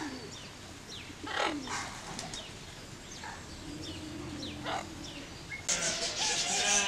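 Zoo aviary birds chirping and calling, with one louder call sweeping down in pitch about a second and a half in. Near the end the sound changes abruptly to a louder hiss.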